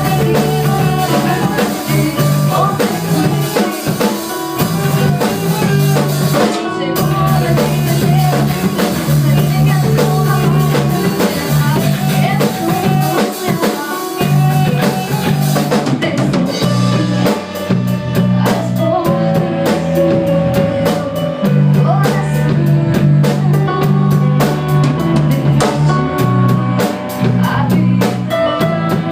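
Rock band playing a song at rehearsal, with the drum kit's snare and bass drum driving along under sustained low notes, without a break.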